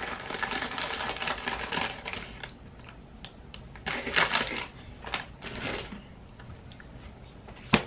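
A bag of Fritos corn chips crinkling and crackling as a hand digs into it, with chips crunching. The sound is dense through the first two seconds or so, then comes in a few separate bursts.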